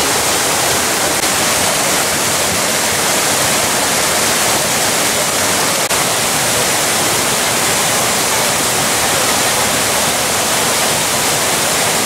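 Steady loud rush of a mountain stream pouring over small cascades.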